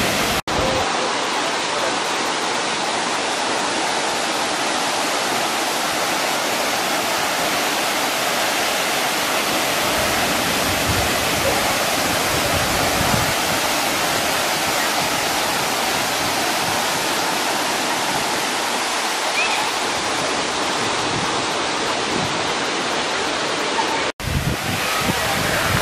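A waterfall plunging from a cliff into a pool: a steady, even rush of falling water, broken by two very short drop-outs, one just after the start and one near the end.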